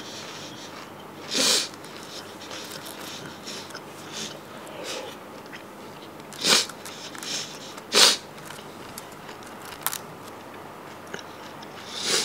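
Someone biting into crisp fried food: three loud, short crunches several seconds apart, with smaller ones in between, over a faint steady background.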